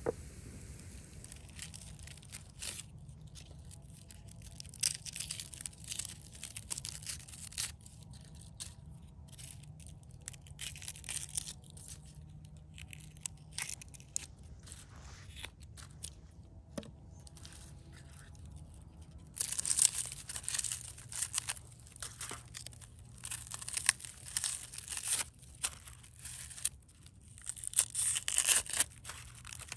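Dry, papery onion skins crackling and tearing as red onions are peeled with a knife. The crinkling comes in quick irregular bursts, sparse at first and denser and louder in the last ten seconds.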